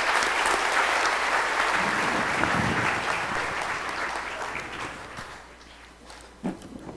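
Audience applauding at the end of a speech, fading out after about five seconds. A single short knock follows near the end.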